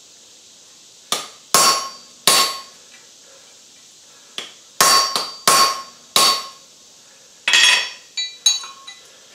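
Hammer striking a ball punch held in hot steel on an anvil, about ten ringing metallic blows at uneven half-second to one-second gaps, the last few lighter. The punch is driving in the divot that catches the bottle cap on a forged bottle opener.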